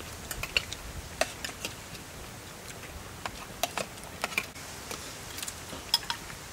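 Metal spoons clicking and scraping on ceramic plates and a bowl, in short, irregular taps.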